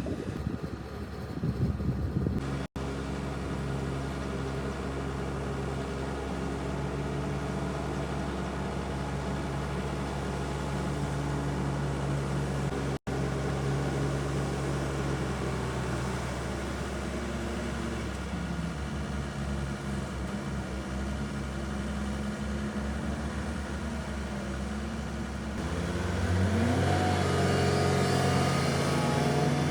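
Heavy earthmoving machine engine running steadily, then revving up to a higher, louder pitch about 26 seconds in.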